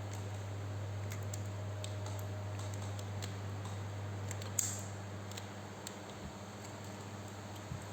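Scattered light clicks and taps over a steady low hum, with one sharper click about four and a half seconds in.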